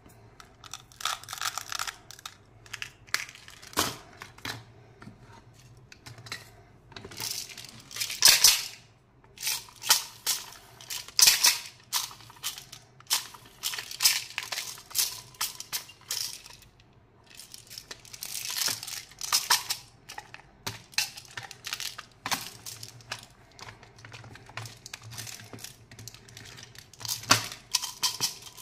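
Hands handling plastic candy toys and containers: irregular clicks, taps and short rattles of small candies inside hard clear plastic.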